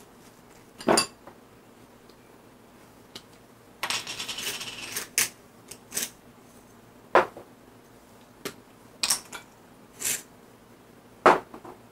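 A metal utensil clinking and scraping against a dish while food is prepared: about eight sharp, separate clinks, with a second of quick rattling scraping about four seconds in.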